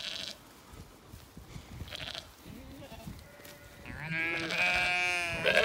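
Zwartbles sheep bleating: one long wavering bleat starting about four seconds in, with a second bleat beginning just as it ends.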